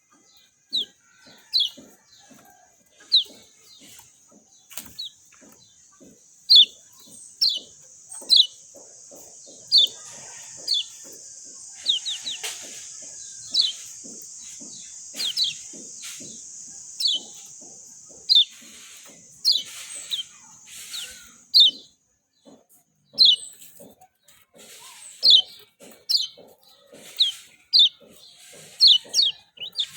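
Kecial kuning, a small white-eye songbird, giving short, sharp chirps that fall quickly in pitch, roughly one a second. A steady high hiss sits under the calls through the middle of the stretch, and the chirps come faster and bunch together near the end.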